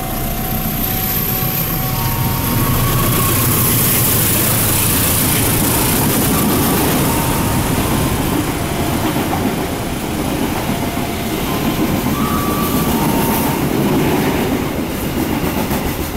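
A CC 201 diesel-electric locomotive and its train of passenger coaches passing through a station at speed without stopping. The engine's deep running sound is loudest in the first few seconds as the locomotive goes by. After it, the coaches' wheels clatter steadily over the rails, with faint brief squeals.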